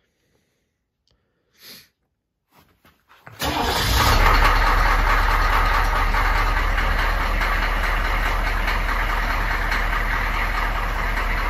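Humvee V8 diesel engine cold-starting with all its glow plugs working: it fires about three and a half seconds in, catches at once and settles into a steady idle.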